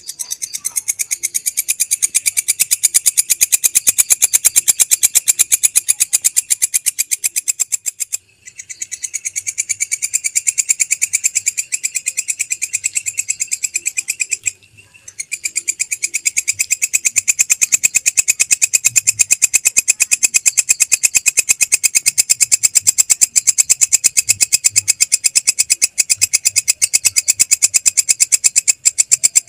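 Belalang kecek katydid (bush cricket) calling in a rapid, high-pitched pulsing trill. It runs in three long phrases, broken by short pauses about eight and fourteen seconds in, and each phrase swells in loudness as it starts.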